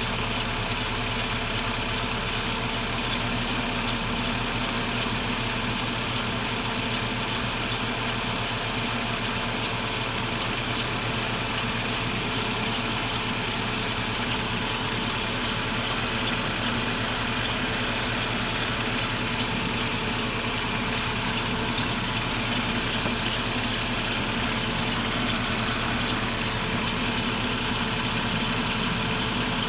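BMW 530i engine idling, with a short, high-pitched squeak repeating in a steady rhythm over the running engine.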